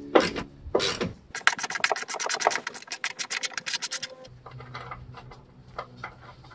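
Ratchet wrench clicking rapidly, about ten clicks a second for nearly three seconds, as a nut on the tailgate lift support's lower mount is turned. Two sharp knocks come just before the clicking, and faint scattered ticks follow it.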